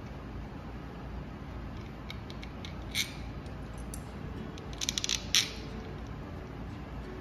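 Light metallic clicks of a small metal bracket and screw being handled and fitted against a motorcycle engine's side cover: one click about three seconds in and a quick cluster of clicks around five seconds in.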